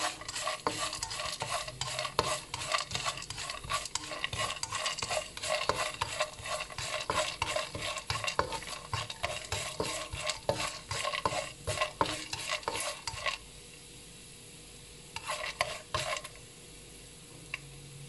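A slotted spatula scrapes and stirs peanuts and chana dal around a non-stick kadai in hot oil, making a rapid clatter over a light sizzle of the frying tempering. The stirring stops about thirteen seconds in, leaving a faint steady sizzle, and a short burst of stirring comes back around fifteen seconds.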